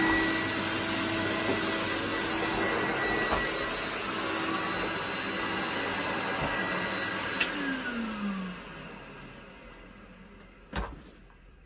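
Numatic David tub vacuum cleaner running, then switched off with a click about seven seconds in. The motor winds down with a falling whine and fades over a few seconds, and a single knock follows near the end.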